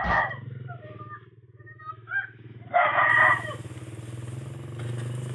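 A rooster crowing twice, at the start and again about three seconds in, over a steady low engine hum.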